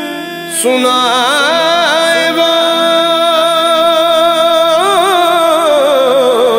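Male voice singing a naat in one long, drawn-out melismatic phrase with heavy vibrato. It comes in about half a second in and glides down in pitch near the end.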